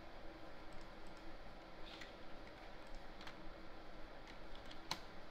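Faint computer clicking: a handful of separate clicks, the sharpest about five seconds in, over a steady low hum.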